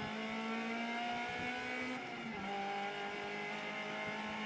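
Honda Civic N2 rally car's engine heard from inside the cabin, running at fairly steady revs, with a short dip in pitch about two seconds in before it picks back up.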